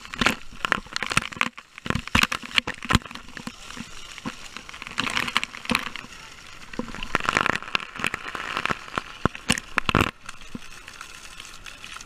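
Water sloshing and bubbling around an action camera, full of small clicks and crackles, with two longer rushing swells about five and seven seconds in.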